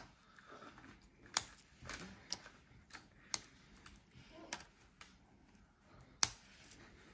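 Brittle dalgona sugar candy being snapped piece by piece with the fingers along its outline: a few small sharp cracks at irregular intervals, the loudest near the end.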